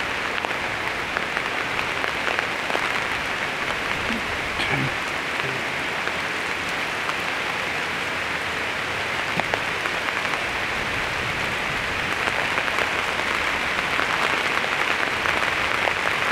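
Steady patter of light drizzle on the hunting blind's roof, swelling slightly near the end.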